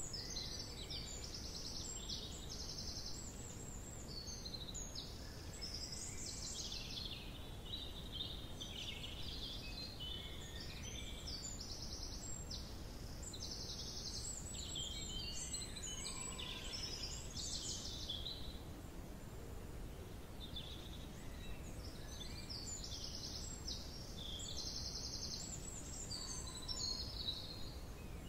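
Small songbirds singing in bursts of high chirps and fast repeated trills, over a low steady background rumble.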